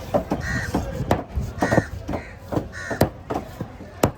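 Crows cawing repeatedly, short harsh calls about once a second, mixed with sharp knocks, the loudest two near the end.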